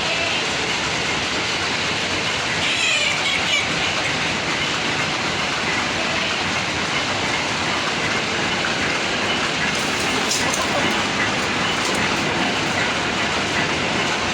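Steady loud rushing noise with no clear source, with a brief faint higher-pitched call about three seconds in and a few light clicks around ten seconds in.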